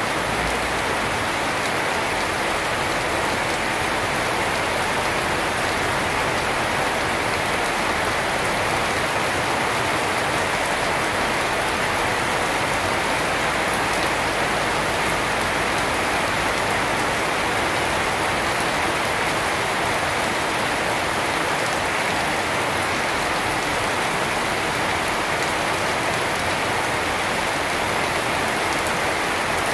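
Rain falling steadily on garden foliage and a wet paved yard: an even, unbroken hiss.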